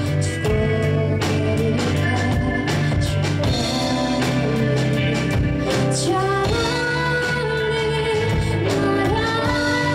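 Live pop-rock band: a woman singing lead over electric guitars, bass guitar, drum kit and keyboard.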